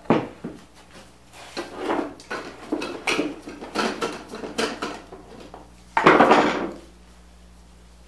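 Metal clinks and scrapes from a small tin can of wood stain being handled and its lid pried off, with a sharp knock at the start and the loudest clatter about six seconds in.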